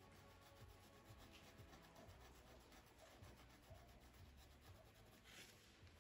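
Near silence, with the faint scratchy rub of a small paintbrush stroking paint onto cloth, a little louder about five seconds in.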